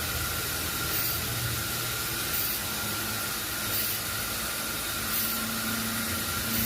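Sawmill machinery running steadily: an even, hissing noise with a steady high whine over a low hum.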